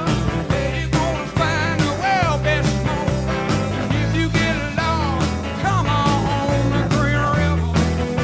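Rock music soundtrack with a steady beat, a repeating bass line and a bending, wavering lead melody.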